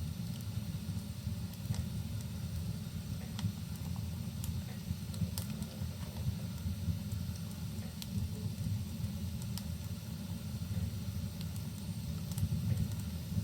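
Wood fire crackling, with sparse sharp pops about once a second, over a steady low rumble of rain.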